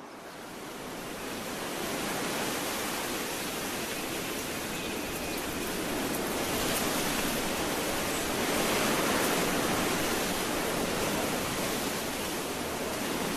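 Wind blowing steadily through a grass field: an even rushing noise that swells in over the first couple of seconds and then holds.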